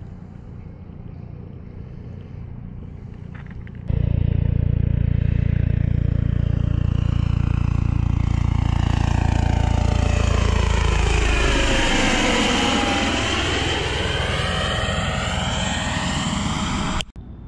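Aircraft passing low overhead: a loud engine drone cuts in about four seconds in, with a hollow whooshing sweep that falls in pitch and then rises again as it passes over, and it stops abruptly near the end.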